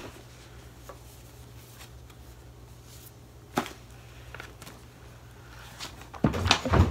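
A camera box and its packaging being handled and opened by hand: a single click about three and a half seconds in, then a burst of knocks and rustling near the end, over a steady low hum.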